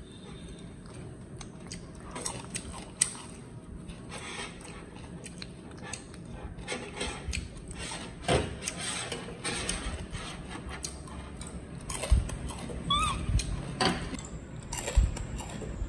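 Scattered light clicks and taps of a metal fork against a ceramic bowl and a steel tabletop as a baby monkey handles and bites on it, with one short high squeak about thirteen seconds in.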